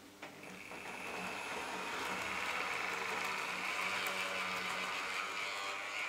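Piko N-scale model of a BR 442 Talent 2 electric multiple unit pulling away along the track: its small electric motor whines at a steady high pitch over the running noise of the wheels on the rails. It grows louder over the first couple of seconds, then holds steady.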